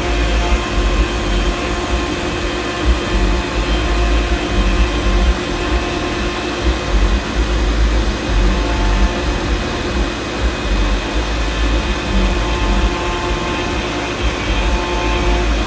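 Small CNC router running, its 300 W spindle motor giving a steady whine over a constant rushing noise and a low rumble.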